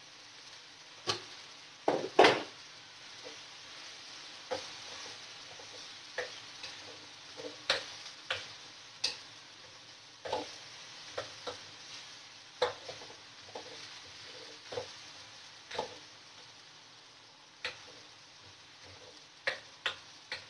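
Wooden spatula stir-frying shredded cabbage and vegetables in a stainless steel wok, knocking and scraping against the metal at irregular intervals, the loudest clatter about two seconds in. A faint sizzle from the hot pan runs underneath.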